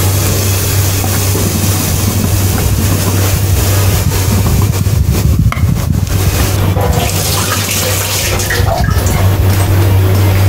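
Loud, steady whooshing hiss over a constant low hum from kitchen equipment running by the stove.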